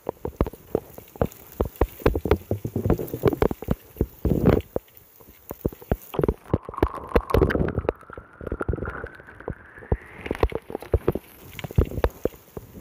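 Storm rain landing close to a phone's microphone in many irregular sharp taps and thumps, with wind buffeting. A faint tone rises slowly in pitch around the middle.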